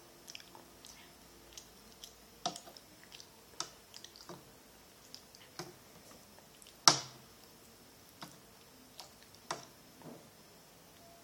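A small child chewing pasta, with scattered clicks and taps of a metal fork against a plate; the loudest, sharpest click comes about seven seconds in.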